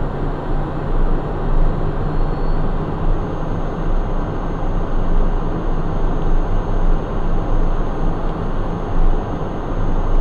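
Steady cockpit noise of a Cessna Citation 501 business jet in level flight: rushing airflow over the airframe and the hum of its twin Pratt & Whitney JT15D turbofans, with a faint high steady whine above it.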